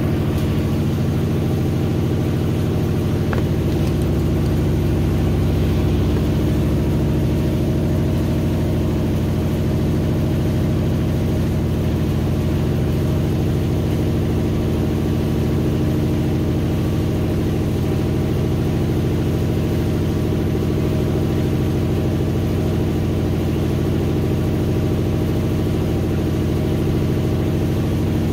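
GE top-load washer (GTW720BSN0WS) running steadily in the last minutes of its cycle: a constant motor and drum hum with several steady low tones, typical of the final spin.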